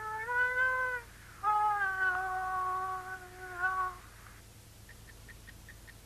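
Two long, high wailing notes, the second held for about two and a half seconds with slight bends in pitch. A clock then starts ticking, about four ticks a second, from a little before the end.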